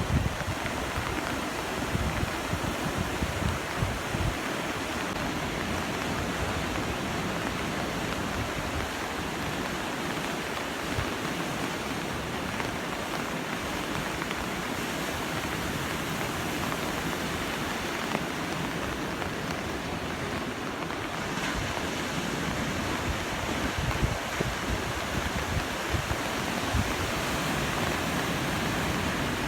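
Ocean surf washing steadily, with wind gusting on the microphone as low rumbles.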